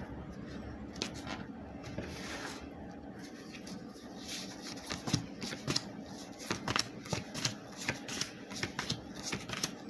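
Tarot cards being shuffled and handled: a soft rustle at first, then a quick, irregular run of card clicks and slaps from about four seconds in.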